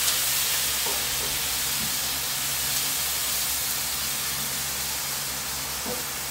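Chicken, bacon, mushrooms and cheese sizzling on a hot Blackstone flat-top griddle under a metal basting dome, with water just squirted onto the griddle steaming off. A steady hiss that slowly fades, over a steady low hum.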